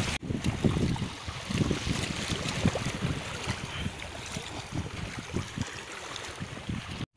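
Wind buffeting the phone's microphone in irregular low gusts, over the steady wash of small waves in shallow sea water.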